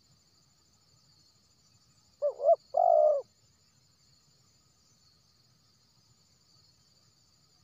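Spotted dove cooing once, about two seconds in: two quick short notes followed by a longer coo.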